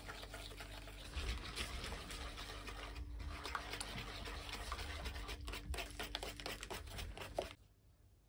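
Small wire whisk beating runny pancake batter in an enamel bowl: quick, continuous clicking and sloshing that stops abruptly about seven and a half seconds in, leaving only faint room tone.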